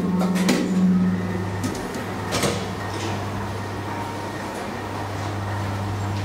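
DEVE hydraulic elevator starting and travelling: a click, then its pump motor starts a steady low hum that carries on while the car moves. There is a higher tone for the first second and a half, with a couple of knocks early on.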